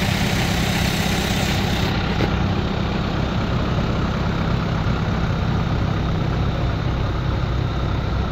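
Recovery crane's heavy diesel engine idling steadily, a low, even running sound that does not change.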